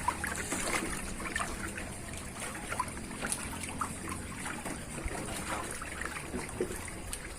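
Water trickling and lapping, with many small scattered clicks and light knocks.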